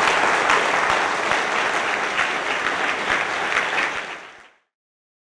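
Audience applauding, dense clapping that fades out quickly about four seconds in, after which there is dead silence.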